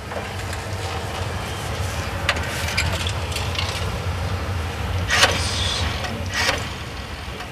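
A vehicle engine running with a steady low rumble, with a few sharp knocks about two, five and six seconds in.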